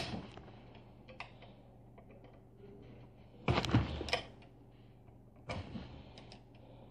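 Knocks and clicks of a metal device housing and a hand tool being handled on a workbench: a sharp knock at the start, a louder clatter of clicks about three and a half seconds in, a shorter one about five and a half seconds in, and light ticks between.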